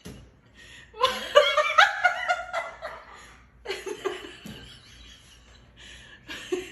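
A parrot answering with laugh-like vocal bursts: a long cackling run about a second in, then shorter bursts near four seconds and near the end.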